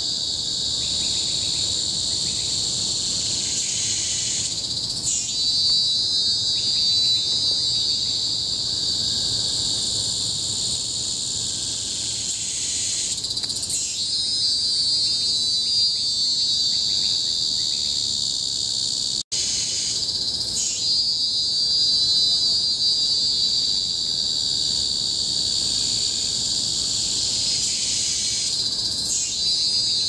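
Cicadas shrilling in a loud, high-pitched chorus that holds steady and swells with a quick glide about every eight seconds. A lower, pulsing call comes and goes beneath it, and the sound cuts out for an instant once, about two-thirds through.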